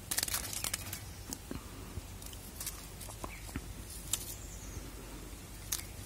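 Crinkling rustle of a toy's wrapper dangling on a string, densest in the first second, followed by scattered light ticks and taps.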